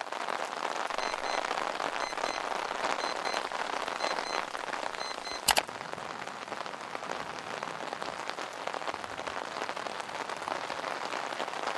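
Steady rain falling, with one sharp click a little past halfway and a few faint, short high peeps in the first few seconds.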